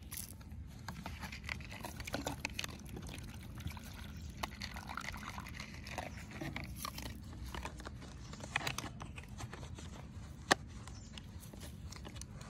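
A dog crunching dry kibble from a plastic bowl, with many small irregular clicks, while water is poured from a plastic bottle into a bowl around the middle. One sharp click about ten seconds in.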